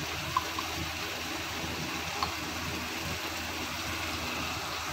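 Vegetables sizzling in sauce in a steel pan, stirred with a plastic slotted spatula, with two light clicks of the spatula, one about half a second in and one about two seconds in.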